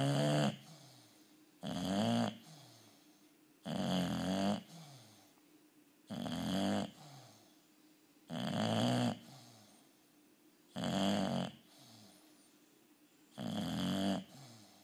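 Bulldog snoring in its sleep: a snore about every two seconds, each under a second long and much louder than the quiet breathing between.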